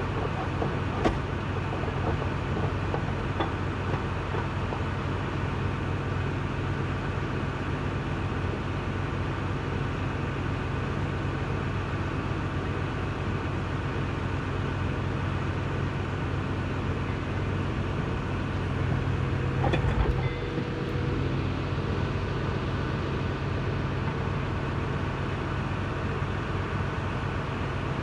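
Steady low machine hum in a repair shop, with a sharp metallic click about a second in and a short cluster of metal knocks about two-thirds of the way through, as gear shafts are worked down into a powershift transmission case.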